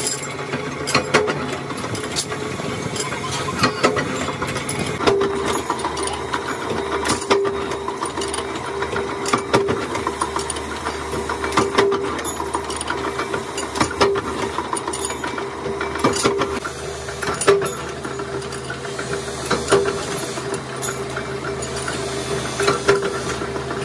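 Flywheel-driven mechanical power press running with a steady hum, its ram striking down with sharp metal knocks every one to two seconds as small steel parts are pressed in the die.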